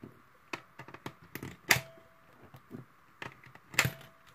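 Coins dropped one at a time through the slot of a digital coin-counting money tin, each landing with a metallic clink, some ringing briefly. About ten clinks with small clicks between, the loudest about halfway through and again near the end.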